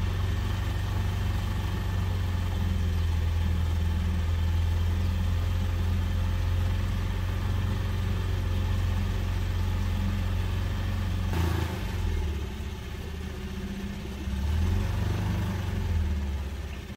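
Small outboard motor pushing a passenger boat along, running steadily with a low hum; its note drops about eleven seconds in and picks up again a few seconds later.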